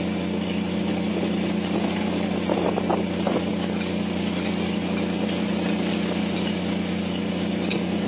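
Steady low drone of a squid-fishing boat's engine running, with a short patch of louder, rougher noise about three seconds in.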